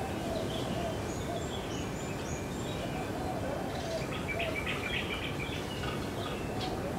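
Small birds chirping and calling over a steady low outdoor hiss, with a few high whistles early on and a quick run of chirps from about four seconds in.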